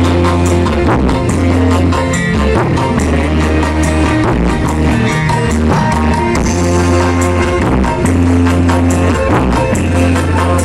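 A dangdut band's music played loud through a PA sound system at a sound check, with heavy held bass notes and guitar and no singing.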